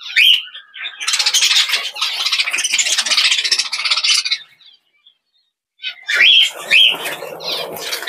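Budgerigars chirping in a small wire carrier cage, with a dense burst of fluttering and scrabbling against the wire for a few seconds as they scramble out through the opened door. There is a short pause, then more chirps near the end.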